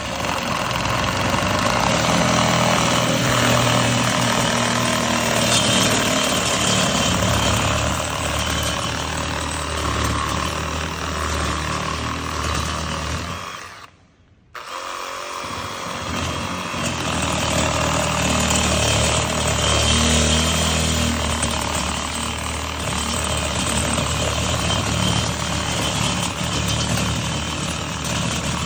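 Makita DJR183 18V cordless reciprocating saw running and sawing. It stops briefly about halfway through, then starts cutting again.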